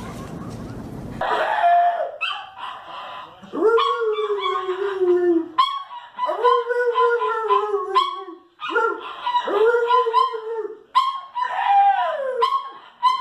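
Dog howling in about five long drawn-out notes that sag slightly in pitch, with higher yelping sounds over them, starting about a second in.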